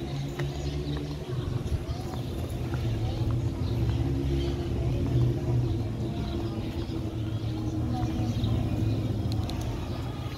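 An engine running steadily with a low hum, loudest about halfway through.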